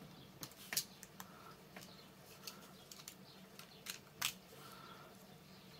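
Snap-off craft knife trimming moulded bits off a small plastic model buffer stop part: faint, irregular clicks and snips, the sharpest about four seconds in.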